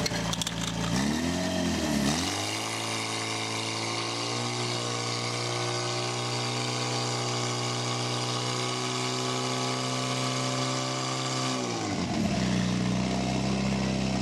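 Portable fire pump's engine revving briefly about a second in, then running steadily at high speed while it drives water through the hoses to the targets, and dropping back to a lower speed near the end.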